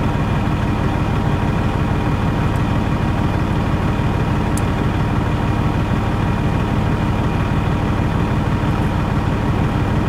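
Diesel semi-truck engine idling steadily, heard from inside a truck cab.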